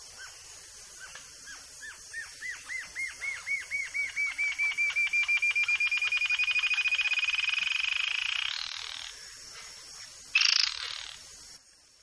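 Yellow-billed jacamar singing: a run of high notes, each rising and falling, that speed up and climb in pitch into a fast trill and end on an upward-sliding note. A brief, louder, rough call follows about ten seconds in.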